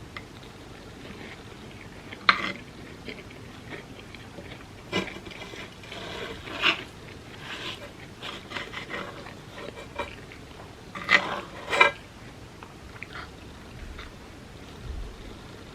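Close-miked eating sounds: chewing and biting, with irregular sharp mouth clicks and smacks, the loudest one about two seconds in and a pair of them about eleven and twelve seconds in.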